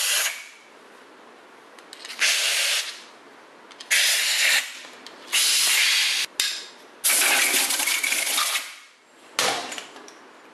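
Compressed-air blow gun blowing out the head bolt holes in an engine block through a rag, clearing debris before the cylinder head goes on. It comes as about six separate blasts of hiss, the longest near the middle lasting more than a second.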